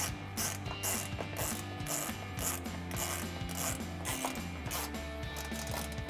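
Hand ratchet with a T15 Torx bit clicking as it turns a fender flare bolt in, a quick series of about two or three clicks a second that thins out after about four seconds, under background music.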